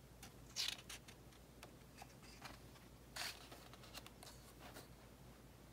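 A picture-book page being turned by hand: soft papery swishes about half a second in and again about three seconds in, over near silence.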